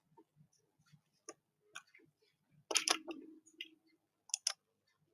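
Light computer mouse clicks, scattered and irregular, with a louder double click a little under three seconds in and two quick clicks near the end.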